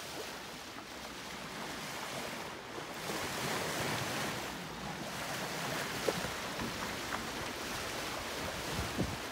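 Water rushing steadily along the hull of an X-Yachts X50 sailing yacht under way in a calm sea, with wind noise on the microphone and a few light knocks in the second half.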